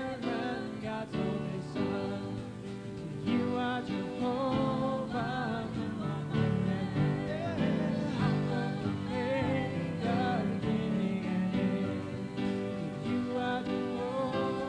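Live worship music: singing voices with a wavering vibrato over steady instrumental accompaniment.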